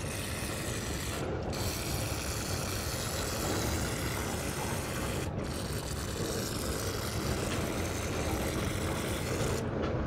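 Aerosol spray can hissing as cleaner is sprayed through its straw onto a motorcycle's front brake caliper and pads, in three long bursts with short breaks about a second in and about five seconds in, stopping just before the end.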